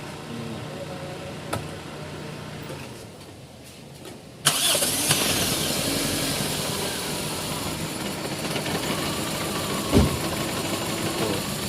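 Toyota 4A-FE four-cylinder engine running at idle with a misfire, which the mechanic traces to the number 2 cylinder. About four and a half seconds in, a loud steady rushing noise comes on suddenly over it. There is a single thump near the end.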